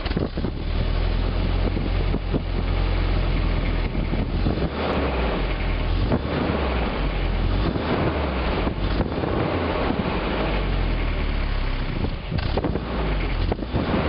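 Volvo 744's exhaust running with the rear muffler removed, a steady deep low note under a rough hiss.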